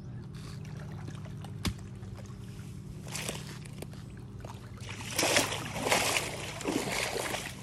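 Pond water sloshing and splashing as a person wades through it, with louder, busier splashing in the last few seconds.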